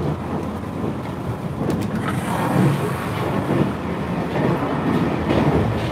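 Steady running rumble of the Ozora diesel limited express train, heard from inside the carriage, with a low hum and a few faint clicks.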